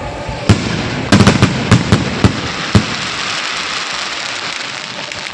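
Fireworks going off: about eight sharp bangs in the first three seconds, several close together, over a steady crackling hiss that carries on after the bangs stop.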